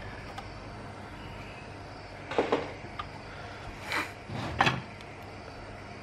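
A few short knocks and a light click from handling inside the open metal chassis of an inverter welding machine, coming in the middle stretch over a low steady background.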